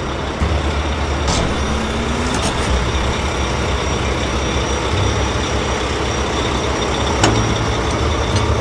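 Large vehicle's engine running steadily in a cartoon sound effect, with a couple of short clicks.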